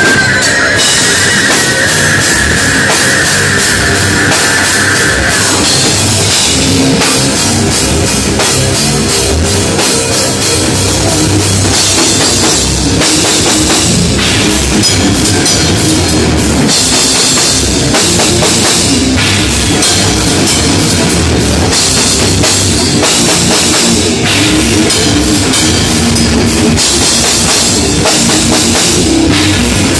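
Loud live heavy metal band playing: electric guitar and bass guitar over a full drum kit with cymbals, with a held high note over the first few seconds.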